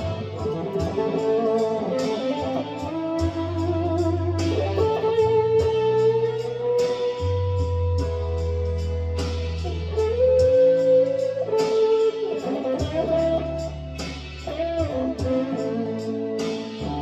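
Gibson Les Paul Traditional electric guitar playing a bluesy lead line with held notes, bends and vibrato over a backing track with sustained bass notes.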